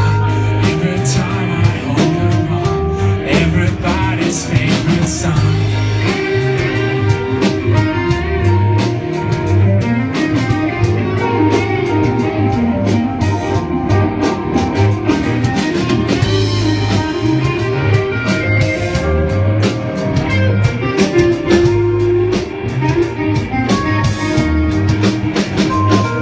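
Live rock band playing a song through the PA: guitar and drum kit at a steady beat.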